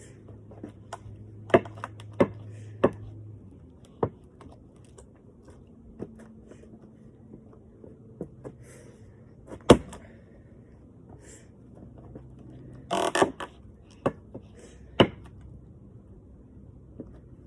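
Axe blows chopping logs: single sharp thwacks at irregular intervals a few seconds apart, with a brief clatter about thirteen seconds in.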